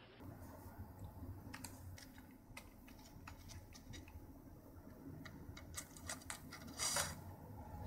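Faint, irregular clicks and taps of a cat's paw on a computer keyboard as it reaches across it, over a low steady hum, with a louder cluster of taps about seven seconds in.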